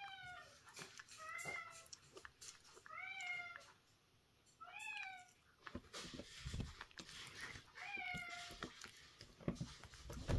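A domestic cat meowing five times, short meows that fall in pitch at the end, about every one and a half seconds with a longer gap before the last. Light clicks and low knocks in the second half.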